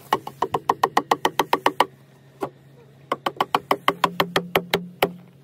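Mallet rapidly knocking on the cedar staves of a wood-fired hot tub being assembled, in two quick runs of about eight strikes a second with single knocks between and after.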